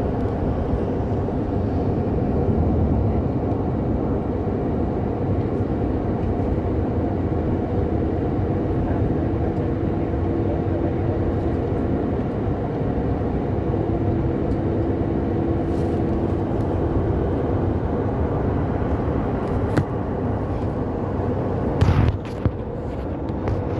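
Steady road and engine noise inside a moving car, with a faint steady hum for several seconds in the middle and a brief knock near the end.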